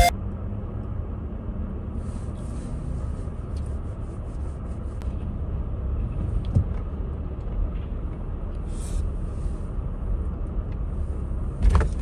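Car heard from inside the cabin while stopped and creeping forward slowly: a steady low engine and road rumble, with faint scattered ticks over it.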